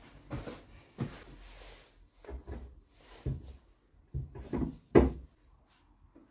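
Irregular wooden knocks and bumps as the bent plywood side of a boat-shaped cradle is handled and worked with a pointed hand tool, with a brief scrape after the second knock. The sharpest knock comes about five seconds in.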